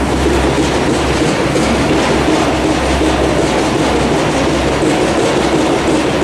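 Loud, continuous rattling clatter of construction work, a fast, unbroken rattle over a dense roar of machinery.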